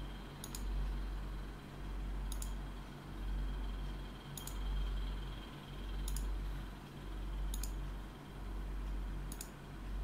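Computer mouse clicking, six single clicks about every one and a half to two seconds, over a low hum that swells and fades.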